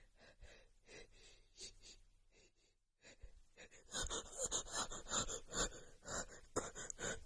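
A woman's quick gasping in-breaths, the build-up before a sneeze. Faint breaths at first, then a fast run of short gasps from about four seconds in that stops just before the end.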